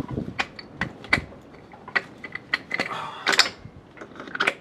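Hydraulic hose quick-couplers being handled and pushed into a tractor's rear remote valve ports: a run of irregular metal clicks and clacks, with a short rushing noise about three seconds in.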